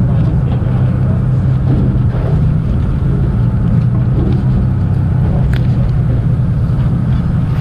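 Fishing boat's engine running with a steady low hum, under wind and sea noise.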